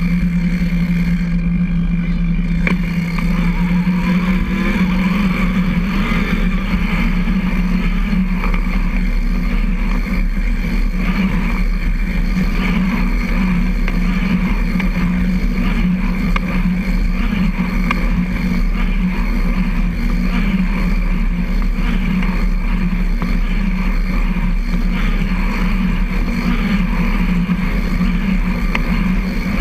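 Steady droning hum of a recumbent trike rolling along a concrete trail, its tyres and chain drivetrain running, heard through the trike-mounted camera. A constant low tone runs over a rumble beneath.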